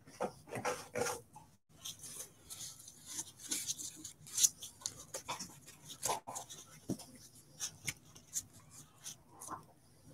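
Handling noise: soft rustling with many scattered sharp clicks and crackles, as of hands working with plastic and packaging.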